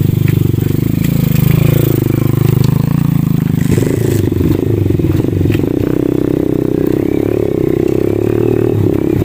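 Rusi KR Mini 110 cc pitbike's single-cylinder four-stroke engine running under load over rough trail. Its revs dip and climb back between about one and three seconds in, then hold higher and steady from about four seconds in. A few sharp knocks come early on.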